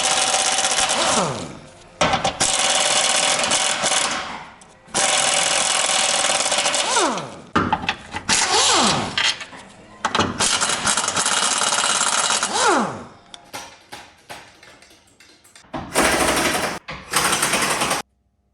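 Impact wrench run in repeated bursts of about two seconds, hammering as it undoes bolts, each burst ending in a falling whine as the tool spins down. Two shorter bursts come near the end.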